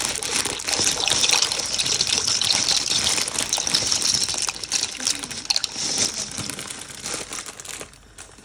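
Water gushing steadily into a vessel, easing off near the end.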